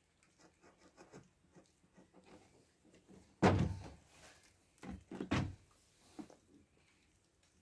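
Plastic canister being handled and set down on a metal workbench: a loud knock about three and a half seconds in, then two more knocks in quick succession a second and a half later, with light rustling and small clicks between.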